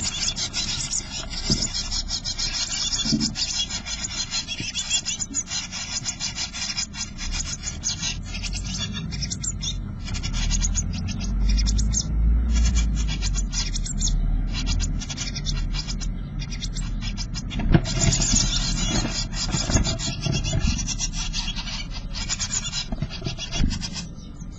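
Blue tit nestlings in a nest box begging continuously in fast, high-pitched chattering calls, with the scratching and rustling of the chicks and an adult moving against the wooden box.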